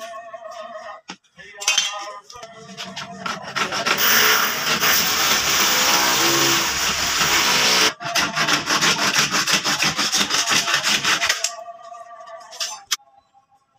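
Hacksaw blade cutting through a hollow PVC panel by hand: rapid back-and-forth strokes starting about two seconds in and stopping a little before the end.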